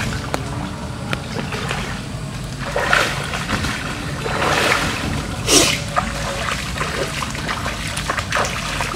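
River water splashing as a man wades, swims and scoops water over himself to rinse off. There are several splashes, the loudest about five and a half seconds in, over a steady rush of flowing water.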